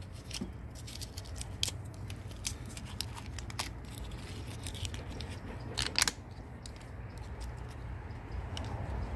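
Plastic split wire loom and tape crackling and clicking as they are pried open and peeled off a wiring harness by hand, with a couple of louder snaps about six seconds in. A steady low hum runs beneath.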